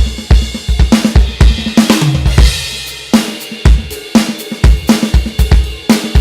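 A drum kit being played: a groove of kick drum, snare, hi-hat and cymbal hits, with a short fill on a low tom about two seconds in and a brief ringing pause before the beat picks up again.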